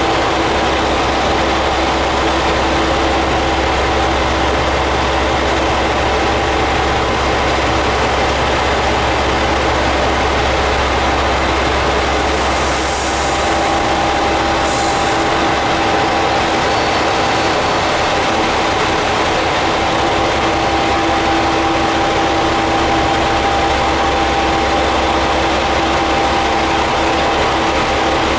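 Diesel railcar idling at a station platform: a steady engine drone with a constant hum. About halfway through come two short high hisses of air, after which the deepest rumble eases off a little.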